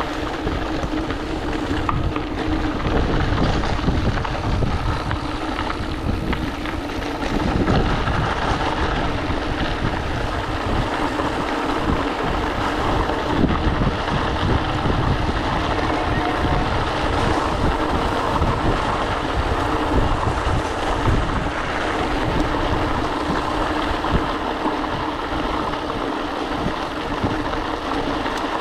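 Steady rolling noise of a mountain bike on a gravel road: knobby tyres crunching over loose gravel, with wind rumbling on the camera microphone.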